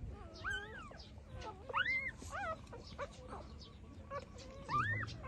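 Six-day-old puppies whimpering: a handful of short, high squeaky calls, each rising and falling in pitch.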